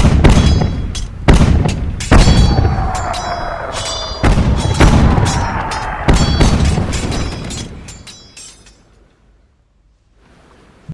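Cannon fire sound effect: about six loud booms in the first six seconds, each ringing away, with a faint falling whistle underneath, fading out by about eight seconds in.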